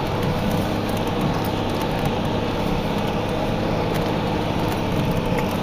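Toyota Land Cruiser HDJ100 4x4 driving steadily up a packed-snow track: a constant engine drone with tyre and road noise, no change in pace.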